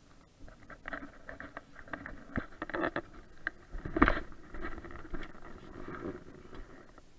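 Irregular knocks, clicks and rubbing from fishing rods and multiplier reels being handled in a small boat, with a louder bump about four seconds in.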